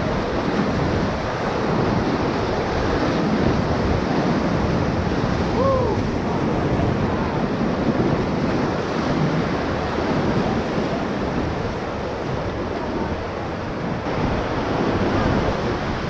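Whitewater rapids rushing and churning around a raft: a steady, loud rush of water.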